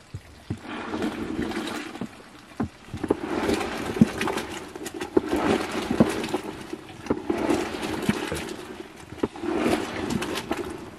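A plastic sack rustling in bursts of a second or more as hands rummage inside it, with scattered small clicks and knocks.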